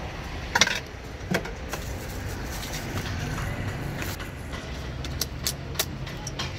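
Plastic cups and a plastic jar clicking and knocking as they are handled and set down on a counter, with the loudest knock about half a second in and a run of quick light clicks near the end, over a steady low background rumble.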